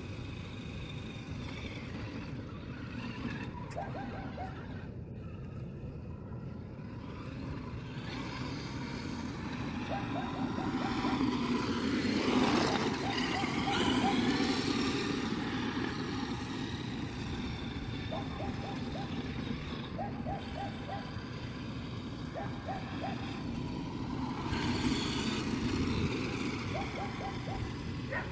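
Traxxas X-Maxx electric RC monster truck driving over dirt, growing louder as it comes close about halfway through and again near the end, over a steady background hiss.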